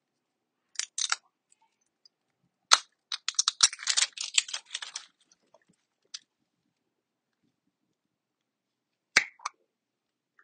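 Handling noise from objects being moved: a couple of clicks about a second in, a sharp knock just under three seconds in followed by about two seconds of rapid clicking and rattling, and another sharp knock near the end.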